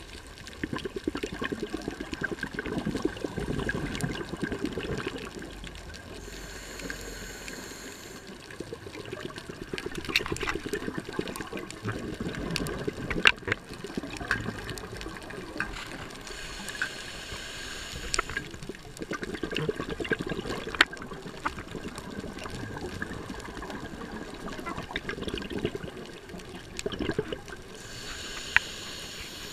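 Scuba diver breathing through a regulator underwater: about three breath cycles, each a short hissing inhale followed by a longer gurgle of exhaled bubbles. Scattered sharp clicks run through it.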